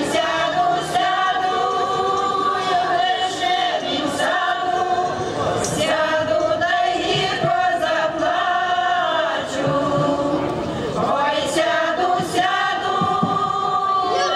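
Women's folk choir singing a Ukrainian folk song unaccompanied, in long held phrases with short breaks between them.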